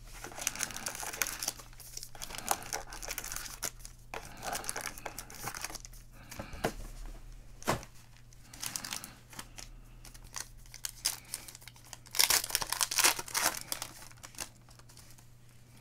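Foil trading-card packs of Elite Extra Edition baseball crinkling as they are handled, with a louder stretch of crinkling and tearing near the end as a foil pack is ripped open by hand.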